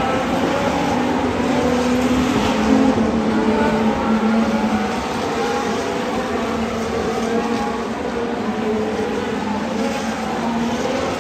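Formula 1 cars' 1.6-litre turbocharged V6 hybrid engines passing one after another, several engine notes overlapping and shifting in pitch as the cars go by, loudest about three seconds in.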